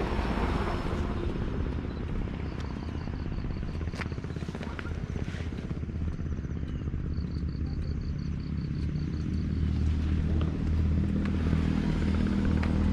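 Yamaha MT-09 inline-three motorcycle engine running steadily on the move, growing louder in the last few seconds. A faint high ticking comes twice, about five ticks a second.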